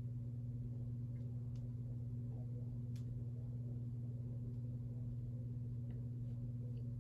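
Sears-sold Emerson ceiling fan motor running on medium speed, a steady low hum with a few faint ticks.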